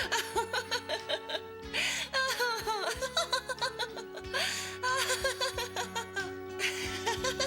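Soundtrack music with held tones, with light laughter over it.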